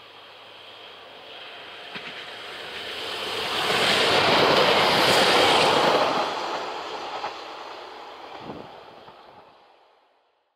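ZSSK class 861 diesel multiple unit passing on the track, growing louder to a peak about four to six seconds in and then dying away, with an occasional knock of wheels over rail joints. The sound fades out near the end.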